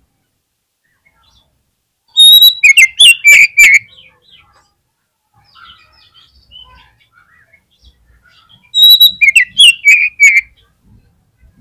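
Oriental magpie-robin singing: two loud bursts of rapid, sharp notes, each opening with a high whistle, about two seconds in and again some seven seconds later, with faint chirps between.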